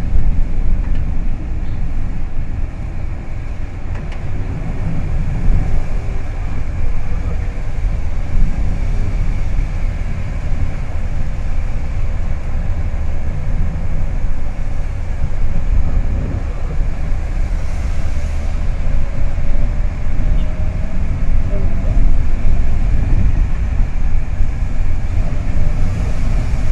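Inside a car driving on a wet road: a steady low rumble of the engine and tyres, with a hiss of tyres on wet pavement.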